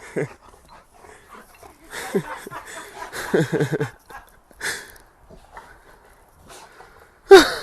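A dog making short breathy huffs and small whining sounds, then one loud cry that falls in pitch near the end.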